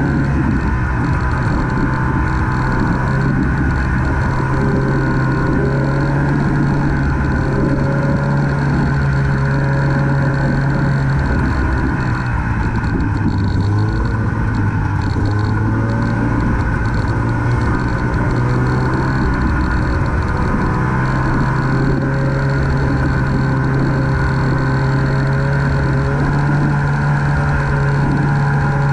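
Snowmobile engine running steadily while riding, heard up close. Its note drops for a while in the middle and then rises again.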